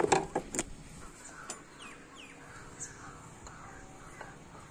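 A few sharp metallic clinks and taps of hand tools on a motorcycle's engine covers, loudest in the first half-second, with crows cawing repeatedly in the background.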